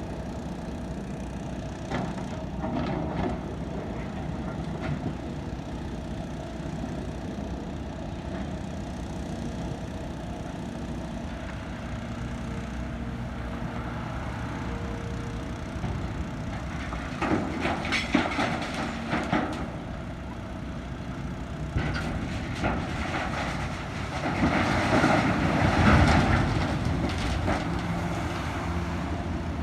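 Excavator's diesel engine running steadily, with several bursts of clattering and rattling, the loudest near the end.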